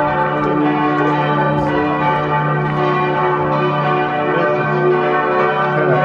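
Several church bells pealing together, loud and continuous, their overlapping tones ringing on without a break.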